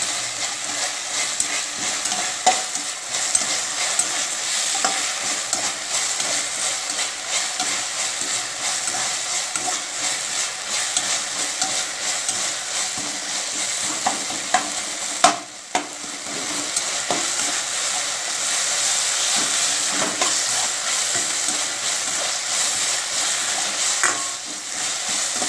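Chopped tomatoes and onions sizzling in oil in a stainless steel kadai, stirred and scraped around the pan with a spatula. A sharp knock about halfway through, followed by a moment's lull in the sizzle.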